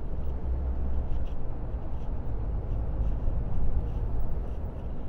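Iveco truck's diesel engine and tyre noise heard from inside the cab while driving, a steady, mostly low-pitched sound.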